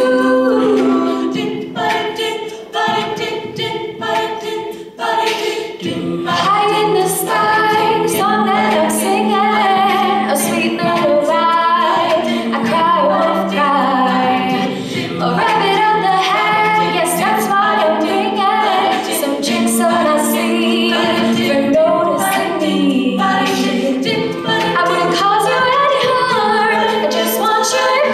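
Women's a cappella group singing: a lead voice over backing voices that hold low sustained notes. Sharp percussive clicks keep the beat.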